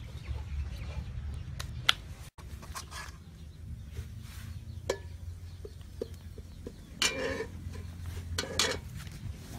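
A metal ladle clinks a few times against a steel cooking pot holding water, with two short scraping, splashing noises near the end, over a steady low rumble.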